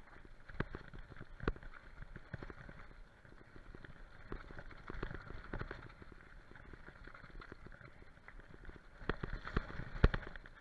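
Mountain bike rolling fast down a bumpy dirt trail: a steady rush of tyres on dirt, with irregular sharp knocks and rattles as the bike hits bumps, the biggest about half a second and a second and a half in, and a cluster near the end.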